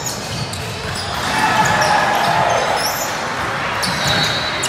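A basketball bouncing repeatedly on a gym floor during play, over the background voices of players and spectators.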